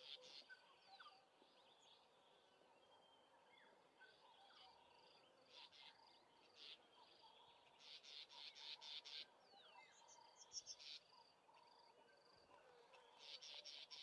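Near silence with faint outdoor ambience: scattered small bird chirps and faint insect trilling, with short runs of rapid high clicking pulses about midway and again near the end.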